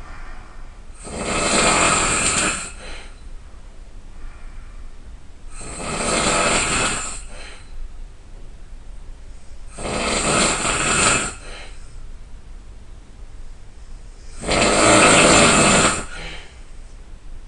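A person snoring loudly: four long snores about four seconds apart, each lasting about a second and a half, with quieter stretches between.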